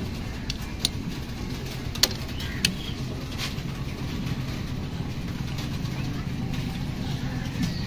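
Short metallic clicks of an Allen key turning in the hex socket of a screw cap on a Hero Splendor Plus engine cover, several sharp ticks within the first few seconds, over a steady low hum.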